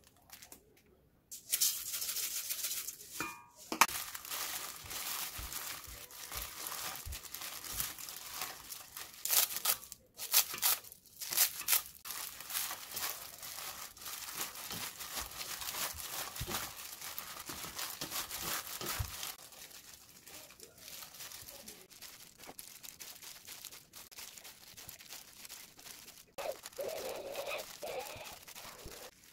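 Crinkling and rustling of a disposable plastic glove and crumbled roasted seaweed as a gloved hand mixes them with rice in a stainless steel bowl and squeezes the mix into rice balls. It starts about a second and a half in and turns softer about two-thirds of the way through.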